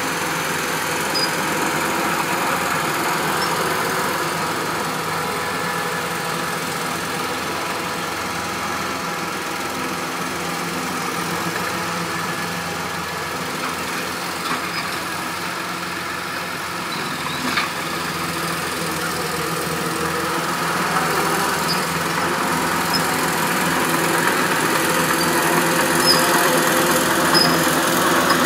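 Diesel engines of heavy equipment running steadily: a Cat 953 crawler loader grading dirt, with a Massey Ferguson tractor also working nearby. The engine sound grows louder over the last several seconds, and a single sharp clank comes about two-thirds of the way through.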